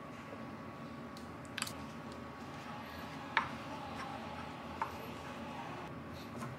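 Wooden spoon tapping against a glass mixing bowl three times while stirring cream cheese into crumbly dough, the loudest tap near the middle, over a faint steady hum.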